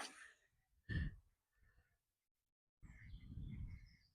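Faint outdoor ambience with small birds chirping, a short soft thump about a second in, and a low rumble near the end.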